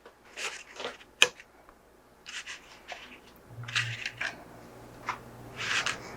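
Small clicks and rustling of hands clipping beading wire and nylon cord to a braiding board, with one sharp click about a second in. A faint low hum comes in about halfway through.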